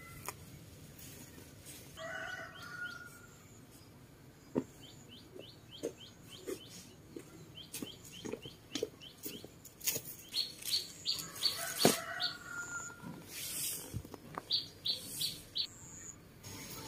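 Birds chirping outdoors: several quick runs of short, high, evenly repeated chirps, with a longer pitched call twice. Scattered light knocks and rustles sound among them.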